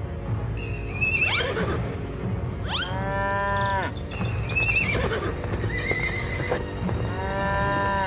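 Light cartoon background music with two drawn-out farm-animal calls, one about three seconds in and one near the end, and short high chirps in between.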